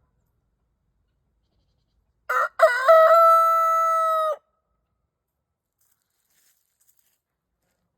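A rooster crows once, a couple of seconds in: a short broken start, then one long held note that cuts off.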